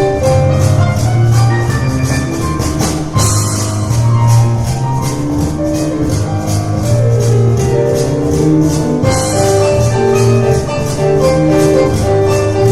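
Piano and cajon playing an instrumental piece together: piano notes over a fast, steady cajon beat, with two stronger accented hits about three seconds in and near the end.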